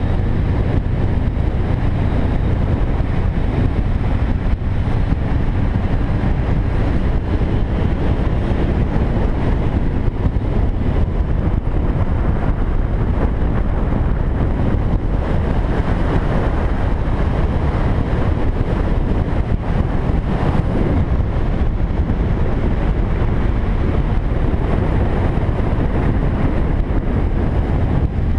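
Steady riding noise from a moving motorcycle: wind rushing over the microphone with the engine and road noise underneath.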